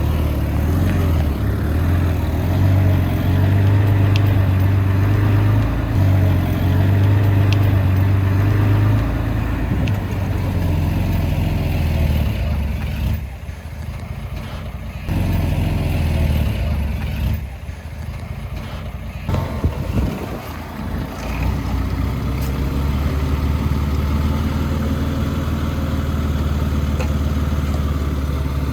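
Heavy machine's diesel engine running steadily at a low, even pitch, easing off twice briefly around the middle before settling back to a steady run.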